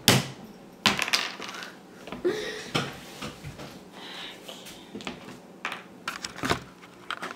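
Acorns and acorn caps knocking and clattering on a wooden tabletop: sharp knocks at irregular intervals, with a short rattle a couple of seconds in.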